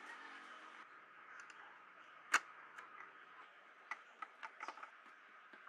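Small clicks and ticks as a screwdriver drives a mounting screw that fixes a speaker driver's metal frame into its plastic cabinet. One sharp click comes about two and a half seconds in, then a quick run of small clicks about a second later.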